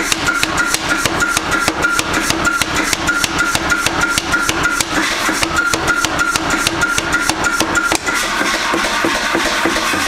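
Mechanical power hammer (smithy drop hammer) striking a red-hot iron bar in a fast, even run of blows, several a second, each with a metallic ring. The blows grow less sharp about two seconds before the end.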